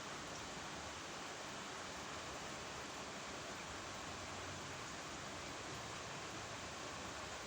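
A steady, even rushing noise without any distinct events.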